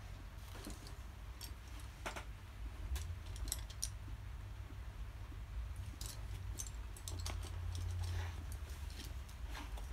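Scattered light clicks and taps, a dozen or so at uneven intervals, over a steady low rumble.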